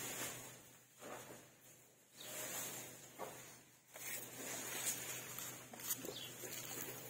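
Faint shuffling and rustling from a three-month-old Asian elephant calf moving about on sandy ground, with a few soft knocks.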